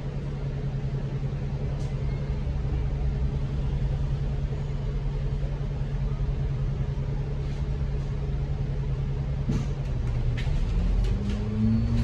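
Double-decker bus engine idling at a red light with a steady low hum. Near the end the bus pulls away and the engine note rises, with a few light rattles from the cabin, heard from inside the upper deck.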